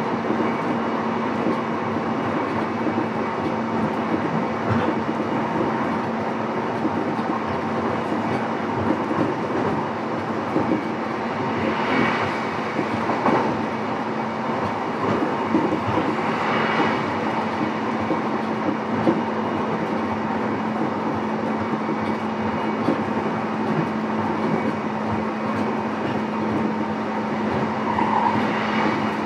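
Running noise heard inside a motor car of a JR East E233-7000 series electric train: a steady rumble of wheels on rail with a constant hum, swelling briefly a few times.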